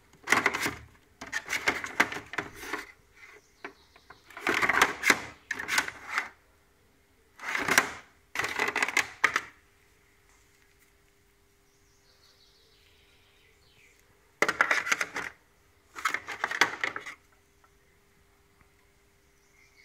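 Handling noise: bursts of clattering and rustling as a cordless inspection camera, its cables and a hard plastic case insert are lifted and moved. There are several bouts, with a pause of a few seconds in the middle.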